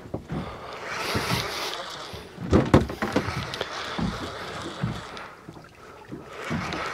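Wind buffeting the microphone and water against the hull of a small fishing boat at anchor, with a few sharp knocks about two and a half to three seconds in.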